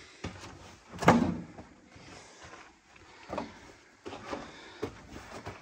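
Irregular footsteps crunching and scraping on loose rock and rubble along a mine drift, with the loudest step or knock about a second in and a few lighter ones later.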